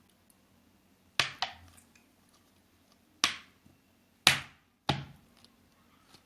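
Five sharp knocks, unevenly spaced, the first two close together and the rest about a second apart, with quiet in between.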